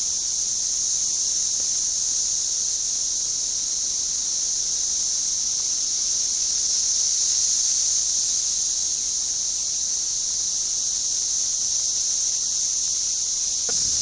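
Dense chorus of Magicicada cassini periodical cicadas: a loud, steady, high-pitched buzzing drone of countless insects, swelling a little about halfway through.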